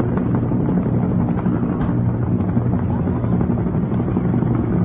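Military helicopters flying overhead: the steady, loud chop of rotors and the drone of turbine engines, with no let-up.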